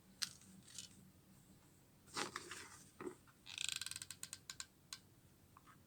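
Faint small clicks and taps from hands at work, with a quick ratchet-like run of clicks about three and a half seconds in, followed by several single clicks.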